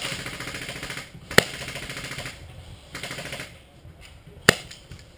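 Two sharp shots from a paintball pistol, about three seconds apart, with bursts of fast rattling fire between them.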